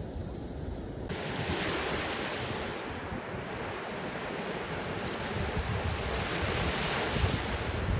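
Ocean surf washing onto a beach, a steady hiss that swells twice as waves break, with wind rumbling on the microphone. The hiss turns suddenly fuller and brighter about a second in.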